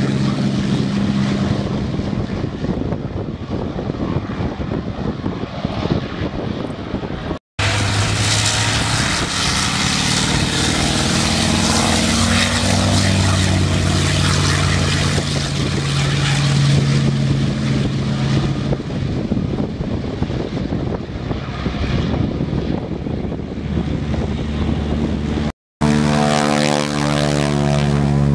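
Single-engine piston warbirds, a P-51 Mustang among them, taking off at full power one after another with a loud, steady propeller-engine drone. The sound cuts out for an instant twice, about a quarter of the way in and near the end.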